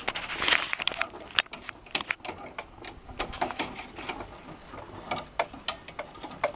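Irregular clicks of a hand-operated ratchet being worked in short strokes, tensioning the line that pulls a steamed wooden board down onto a bending jig, with a brief rushing scrape about half a second in.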